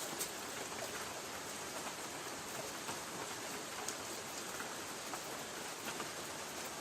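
Light rain falling steadily on a tin roof: an even hiss with scattered individual drop taps.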